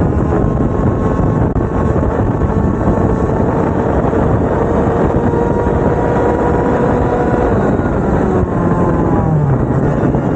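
Two-stroke racing kart engines running under a loud rush of wind noise. A faint engine whine holds steady, then drops in pitch about nine seconds in as the throttle comes off.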